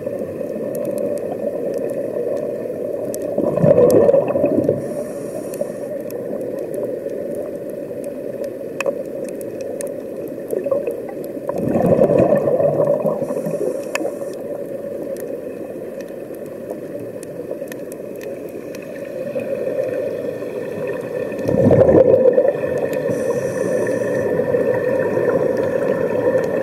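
Underwater recording: a steady rush of bubbling and gurgling water and air, swelling louder three times, about eight to ten seconds apart.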